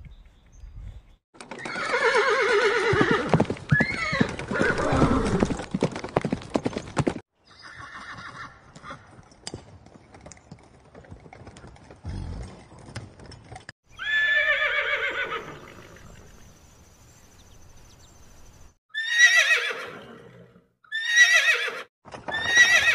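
Horses neighing: a long neigh of several seconds starting about a second and a half in, another shorter one midway, then three short neighs in quick succession near the end, each falling in pitch.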